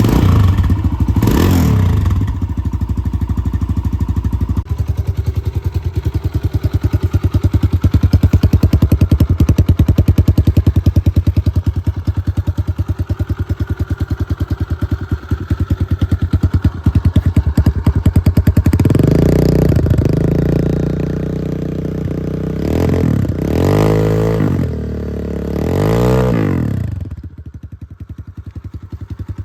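Kawasaki KLX140's single-cylinder four-stroke engine, fitted with a big bore kit and a BBR D3 exhaust, running on its first start after the install. It is blipped once near the start and revved up and down several times in the last third, then drops back toward idle near the end.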